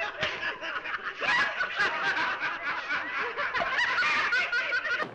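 A group of people laughing and snickering, several voices overlapping.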